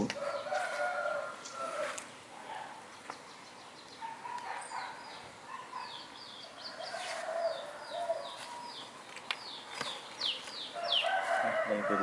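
Roosters crowing several times, at the start, midway and near the end, with small birds chirping quick, short falling notes in between.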